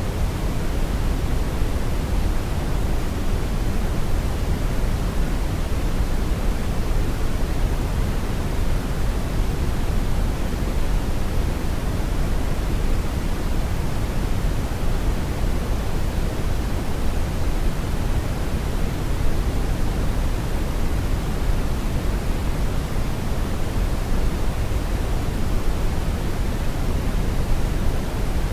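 Steady brown noise: a continuous, even rumbling hiss, strongest in the bass and falling off toward the treble, with no changes.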